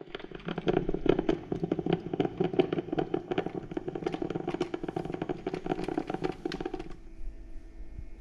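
Mr. Coffee drip coffee maker brewing: a dense, irregular run of sputtering clicks and gurgles as the heated water spits through. It cuts off about seven seconds in, leaving a faint steady hum.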